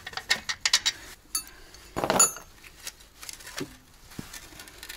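Rusty steel brake parts and hand tools clinking and clanking as they are handled and set down: quick light clinks in the first second, a louder clank with a brief metallic ring about two seconds in, then a few softer knocks.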